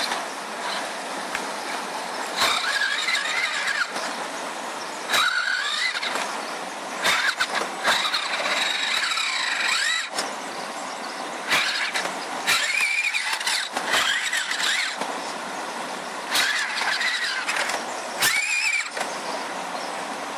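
Radio-controlled crawler truck's electric motor and gears whining in stop-start bursts, rising and falling in pitch as the throttle is worked, with sharp clicks between bursts. A steady hiss of running creek water sits underneath.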